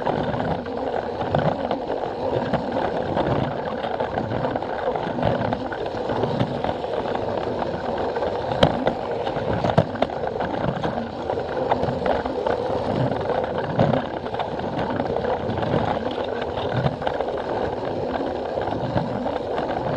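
Plarail toy train running on plastic track: a small battery motor's steady whirr and the rattle of the running gear, with low clacks recurring about once a second.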